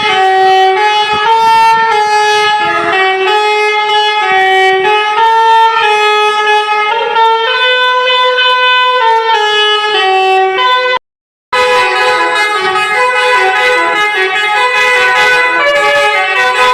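Bus basuri (telolet) musical air horn playing a melody of steady, stepping horn notes. The sound cuts out completely for about half a second near the middle.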